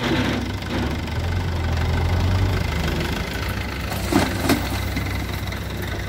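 Diesel engine of a JCB 3DX backhoe loader running steadily while its front bucket tips soil and stones into a tipper trailer, with two sharp knocks about four seconds in.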